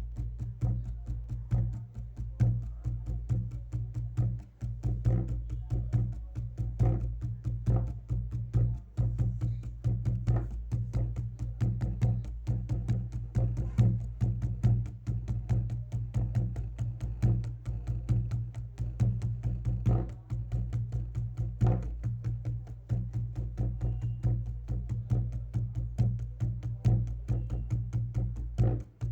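Wooden percussion struck in rapid, rhythmic taps and knocks, played as acoustic sound effects, over a steady low hum.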